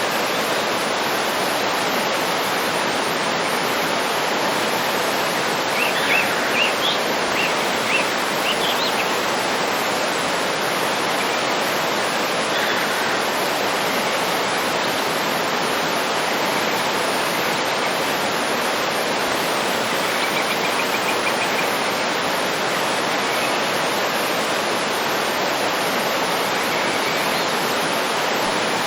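Waterfall rushing steadily. A bird chirps a quick series of short calls about six seconds in, and gives a faint trill around twenty seconds in.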